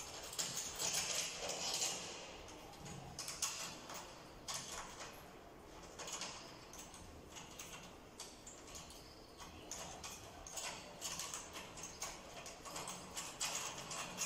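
Irregular light clicks, taps and rattles of hands working on a bass drum's shell and metal hardware while it is being assembled.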